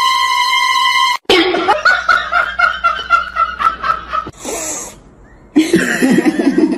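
A steady held tone cuts off about a second in. Then a person laughs in quick bursts for about three seconds, followed by a brief hiss and more low, rough laughter.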